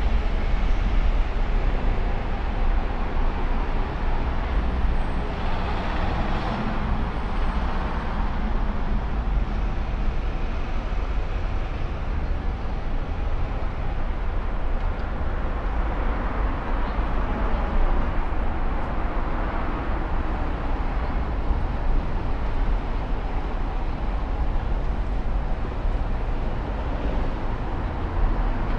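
Steady city street traffic noise from passing cars and buses, with no single event standing out.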